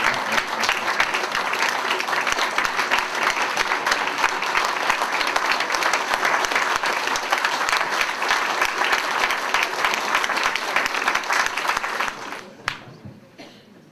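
Audience applauding steadily, a dense patter of many hands clapping, which dies away near the end.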